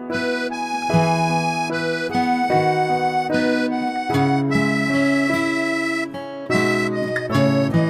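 Background music: an instrumental tune of held notes with a reedy, accordion-like sound.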